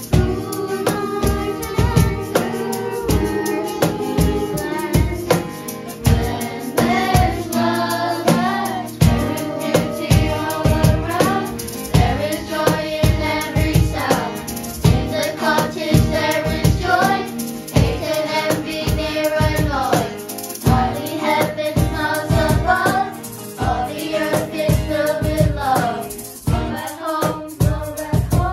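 Children singing a song together, accompanied by acoustic guitar, over a steady beat.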